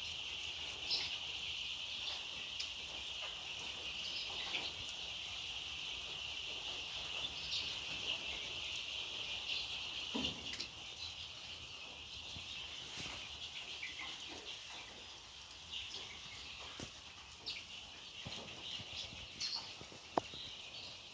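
A large flock of chickens peeping together in a steady chorus, with occasional clicks and knocks; the chorus eases off a little about halfway through.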